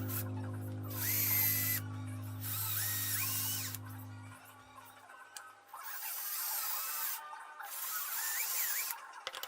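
Background music with a low drone, overlaid by a power tool running in four short bursts of one to two seconds each, its whine rising and falling in pitch.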